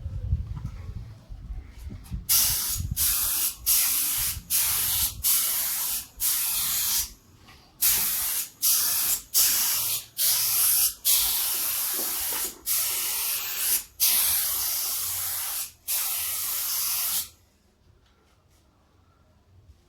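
Pneumatic paint spray gun spraying acrylic car paint in a run of short trigger pulls, a dozen or so hisses of under a second each, then one longer pass of about three seconds that stops about 17 seconds in.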